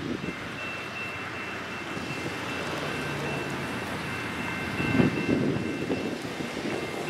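Train led by Alco FPA diesel locomotives running along the track: a steady rumble with a faint, steady high whine above it, and a louder rough stretch about five seconds in.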